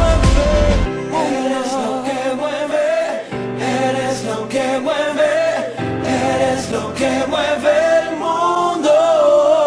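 A song with a wavering sung melody over held chords; the heavy bass stops about a second in.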